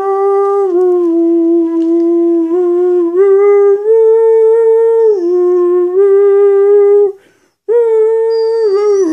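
Howl-like singing in long, held notes that step up and down between a few pitches, with a short break about seven seconds in: a man and his Australian shepherd singing together.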